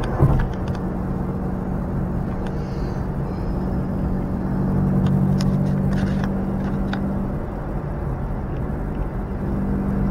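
Car cabin at highway speed: a steady engine drone over continuous tyre and road noise, heard from inside the moving car.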